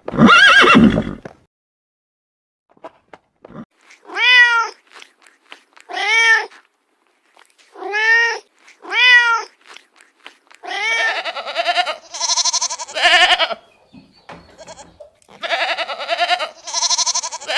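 A cat meowing four times in separate, arching calls, followed by a goat or sheep bleating in longer, quavering calls. A short, loud, noisy sound opens the stretch.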